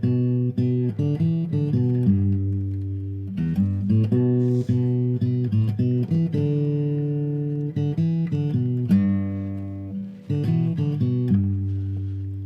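Intro music: a plucked guitar tune of picked notes that ring and fade, changing several times a second.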